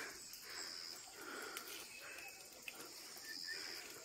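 Faint rural outdoor ambience with a few short, high-pitched animal calls, two of them held as brief steady notes.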